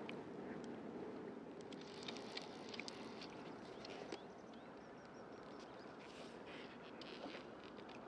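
Faint lapping and splashing water with scattered light ticks.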